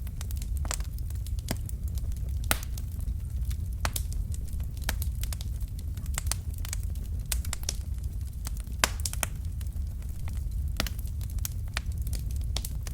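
Wood fire burning in a fireplace: logs crackling and popping at irregular intervals over a steady low rumble of the flames, with a few louder pops.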